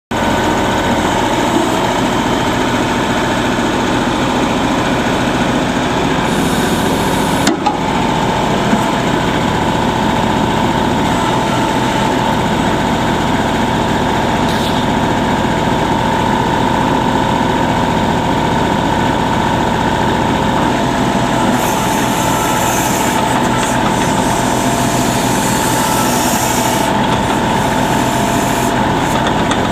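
Kubota L35 tractor loader backhoe's 35 HP Kubota diesel engine running steadily, with a steady whine, and one brief knock about seven and a half seconds in.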